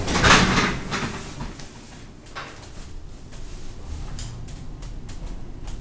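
1967 Flohr-Otis traction elevator doors sliding, loudest about half a second in, followed by a few light clicks over a low steady hum.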